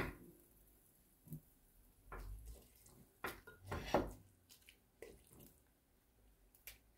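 A plastic spatula stirring wet pilaf in a pot after water has been added, making a few separate wet scrapes and knocks against the pot. A short click near the end as a gas stove knob is turned.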